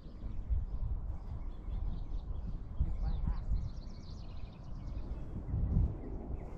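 Wind rumbling on the microphone, with small birds chirping and calling in the background.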